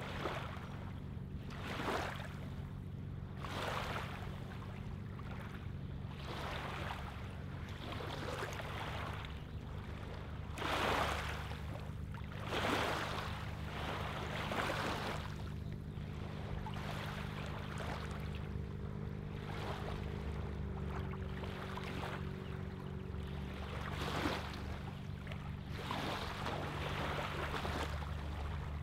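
Small wavelets lapping on a gravelly lake shoreline, a soft wash coming in every one to three seconds, with a quieter stretch in the middle. A steady low hum runs underneath.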